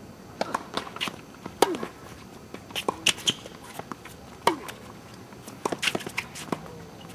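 Doubles tennis rally on a hard court: a quick series of sharp racket-on-ball hits and ball bounces mixed with players' footsteps. The loudest hits come about a second and a half and about four and a half seconds in.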